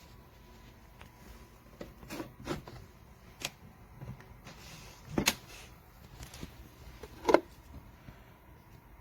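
A handful of separate knocks and clicks, like a small door or object being handled, the loudest two about five and seven seconds in.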